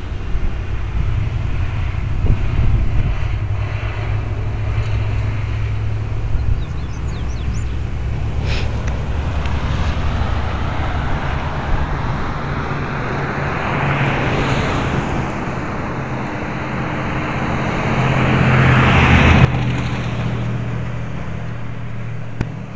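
Vehicle engine running steadily on the road, heard from the moving vehicle. Rushing wind and road noise build up over several seconds to a loud peak, then cut off suddenly a few seconds before the end.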